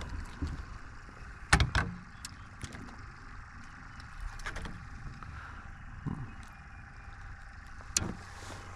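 Knocks and clicks from handling a freshly landed crappie and tackle in a small boat: the loudest pair comes about a second and a half in and another near the end, with scattered smaller ticks over a faint steady background.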